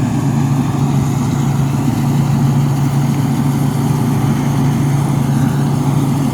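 Thai Seng combine harvester's diesel engine running at a steady speed, a constant low drone.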